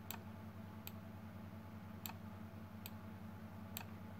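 Faint ticking, about one sharp tick a second, over a low steady hum.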